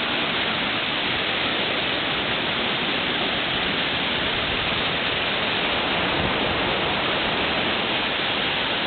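Whitewater rapid rushing steadily: churning river water making a loud, unbroken hiss.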